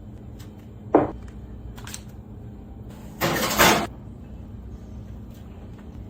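A sharp knock about a second in and a short noisy scrape or rustle a little after three seconds, over a steady low hum.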